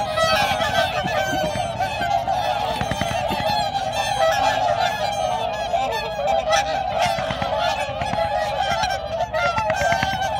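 A large flock of whooper swans on the water calling continuously, many overlapping calls at once with no break.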